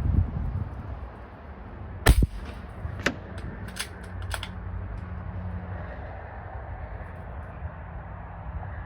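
AEA Challenger .25 air rifle firing a single shot, a sharp crack about two seconds in, followed by a few fainter clicks over the next two seconds.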